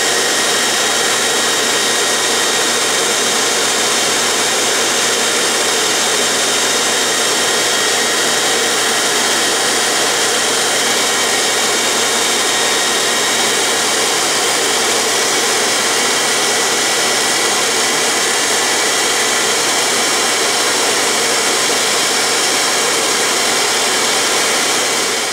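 Dumore toolpost grinder running steadily at high speed, its wheel grinding a hardened steel lathe center on its second pass.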